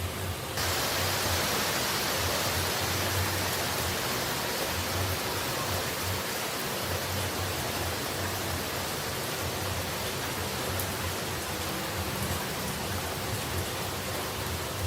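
Steady hissing rush of falling water, a dense even noise. About half a second in it gets louder and brighter, then holds steady.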